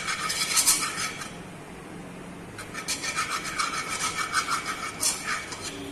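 Small steel spoon scraping round the inside of a frying pan, spreading ghee: quick rubbing strokes with a faint metallic ring. They come in two bouts, the first stopping about a second in and the second starting about two and a half seconds in.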